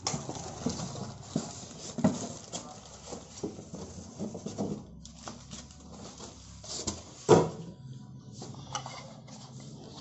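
Microwave accessories being handled: a string of light knocks, clinks and rustles, with one loud knock about seven seconds in.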